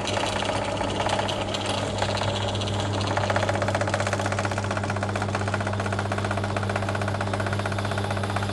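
Pillar drill motor running with a steady hum. From about three seconds in, a fast, even chatter joins it as the twist bit starts cutting into thick flat steel.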